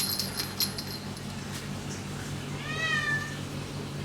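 A cat meowing once, a single drawn-out call past the middle, over a steady low hum. Short high squeaks come in the first second.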